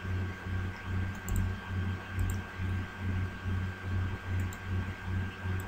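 A few faint computer mouse clicks over a low hum that swells and fades about twice a second.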